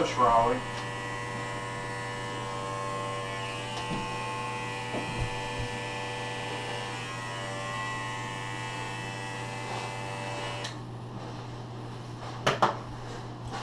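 Handheld electric hair trimmer buzzing steadily as it is run over a man's closely shaved scalp. It cuts off about eleven seconds in, followed by two sharp clicks close together.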